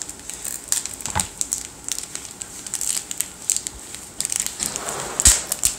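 Crinkling and rustling of handled plastic glitter packets, with scattered small clicks and a sharper knock about five seconds in.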